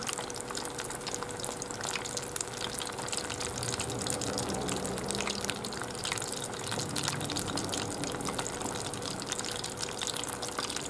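Pieces of takanohadai (spottedtail morwong) coated in potato starch, deep-frying as karaage in a pot of oil: a steady sizzle with a dense crackle. The fish is still cooking through; its sizzle changes once the pieces are done.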